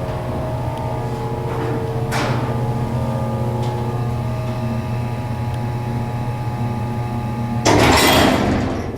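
Montgomery freight elevator's motor running with a steady, many-toned hum as the car travels. Near the end a loud burst of rushing, rattling noise breaks in for about a second.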